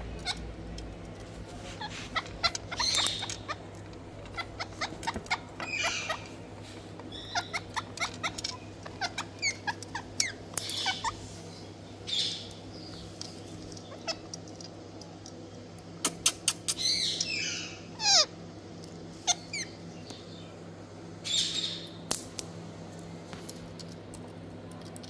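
Rose-ringed parakeets (ringneck parrots) calling in scattered bursts of short squawks, chatter and clicks, with a few falling whistled notes, over a steady low hum.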